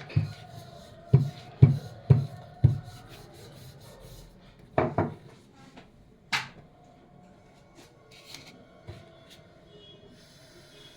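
Roti dough being worked and rolled on a wooden board: a run of dull knocks about two a second in the first three seconds, then a few more knocks and some rubbing.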